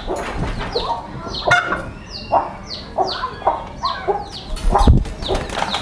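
Chickens: chicks peep over and over in short, falling cheeps, several a second, with lower clucking under them. A wire cage knocks twice, near the middle and towards the end.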